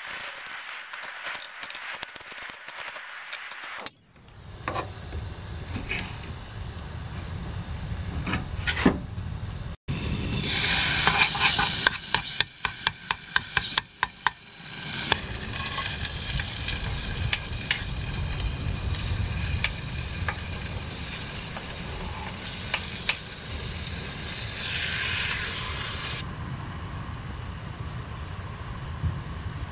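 Camp cooking: a knife chopping green beans on a wooden board, then a metal spoon stirring and scraping paste sizzling in a pot, a quick run of clicks about ten seconds in. After that comes a steady high insect buzz with a low hiss.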